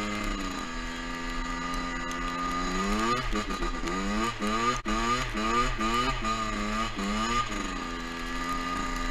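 Two-stroke dirt bike engine idling, then revved in quick repeated blips, about two a second, for several seconds before settling back to idle.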